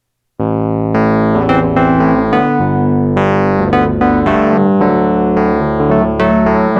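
Background music: electric piano or synthesizer keyboard playing struck notes and chords, starting about half a second in.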